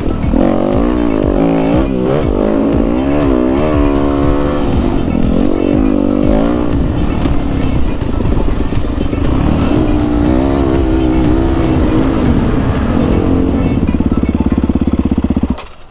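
Yamaha WR250F's 250 cc four-stroke single-cylinder engine heard from the rider's seat, revving up and down through the throttle and gears for the first several seconds. It then runs steadier and slows to an even, low-speed run near the end before the sound cuts off suddenly.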